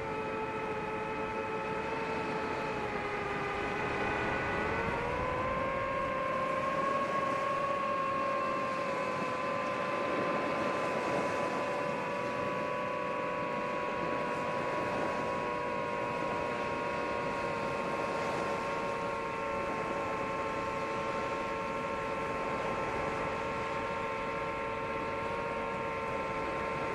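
DJI FPV drone's motors and propellers whining steadily in flight, a multi-toned hum over a hiss. The pitch dips slightly, then rises about five seconds in and holds steady.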